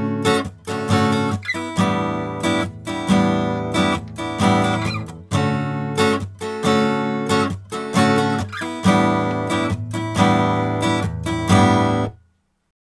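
Acoustic guitar strummed in a steady rhythm of chords, recorded through a Grace Design m501 microphone preamp set for a transparent sound. The playing cuts off suddenly near the end.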